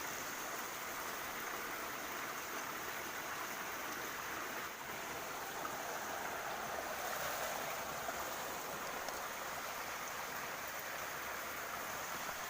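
A small waterfall and mountain stream rushing steadily: an even, unbroken sound of flowing water.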